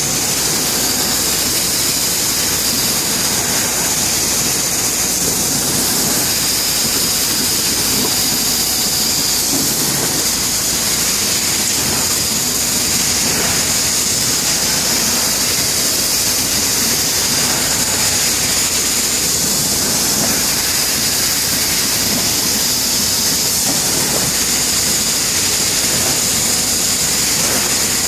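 Bystronic CNC laser cutting machine running, a loud steady hiss with a constant high whine over it.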